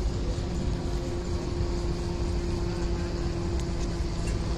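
Steady low engine rumble with a droning hum held at one pitch.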